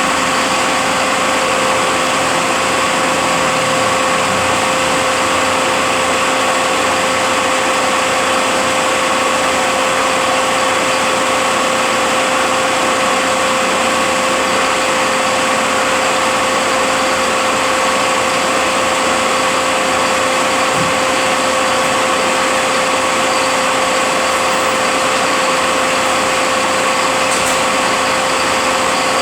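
Rebuilt Eaton Fuller RTLO-18913A 13-speed truck transmission running steadily on a dyno test stand, a constant machine noise with a steady whine.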